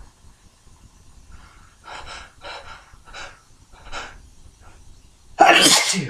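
A person's forceful sneeze near the end, brought on by tickling the nose. Several short, breathy in-breaths come before it as the sneeze builds.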